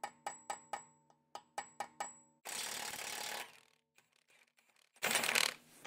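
A ratchet clicking about four times a second for roughly two seconds. Then a Milwaukee high-torque impact wrench runs in two bursts, the second shorter and louder, spinning the 32 mm front CV axle nut off the hub.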